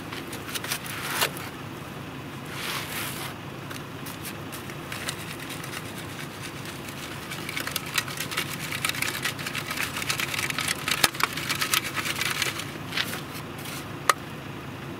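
Dirt being shaken through a trapper's sifter screen to cover a set trap: a dense crackle of many small clicks as soil and little clods rattle through the mesh, loudest in the second half. It is preceded by two brief scraping hisses and followed by one sharp click near the end.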